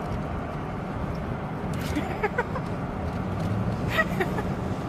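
Steady road and wind noise inside a moving car with the side window down. Two short pitched sounds come through it, about two seconds in and about four seconds in.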